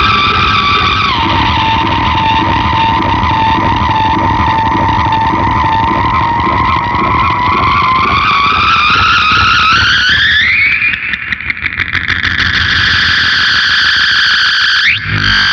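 SG electric guitar through a Big Muff fuzz and an MXR Analog Delay, giving a loud sustained distorted drone that slides in pitch. It drops about a second in, climbs slowly after halfway, flutters briefly, and sweeps quickly upward near the end.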